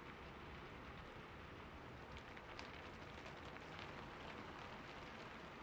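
Quiet, steady rain falling, with scattered faint drop ticks.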